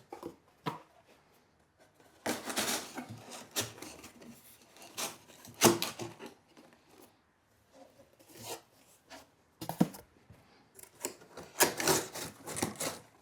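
Cardboard shelf pieces, cut from bicycle shipping boxes, being handled and pushed into slots: irregular scraping, rubbing and sharp taps of stiff cardboard, in short bursts with brief pauses between.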